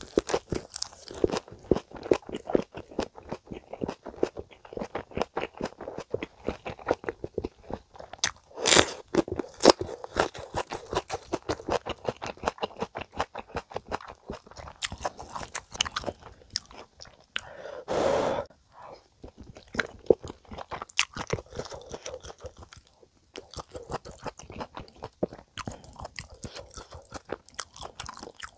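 Close-miked chewing of a leafy-green ssam wrap of spicy stir-fried chicken: a steady run of crisp crunches and wet mouth sounds, loudest a little under a third of the way in. One longer, louder sound comes a little past halfway.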